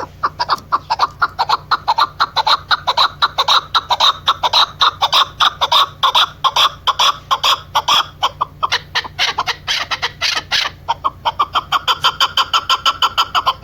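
Female chukar partridge calling in a fast run of short repeated notes, about five a second, that keeps going without a break and stops near the end.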